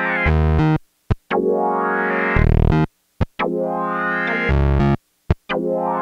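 Black Corporation ISE-NIN analog polysynth playing a repeating phrase, heard dry without reverb: held chords with a filter sweeping through them, a low bass note at the end of each chord, and short stabs in between, in phrases about two seconds long with brief gaps.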